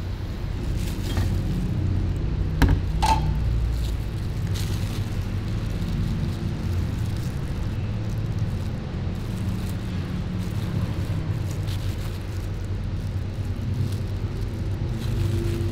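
Steady low rumble, with two sharp knocks close together about three seconds in.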